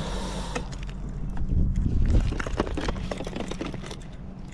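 Scattered small clicks and taps of hands handling a hooked garfish, lure and fishing rod, over a low steady rumble.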